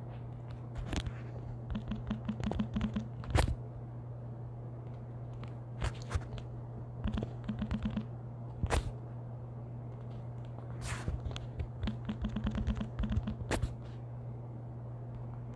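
Typing on a computer keyboard in short runs of quick keystrokes, with a few louder single clicks, over a steady low hum.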